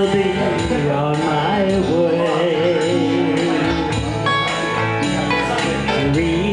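Live band music: a woman sings into a microphone with vibrato over electric guitar and a steady beat.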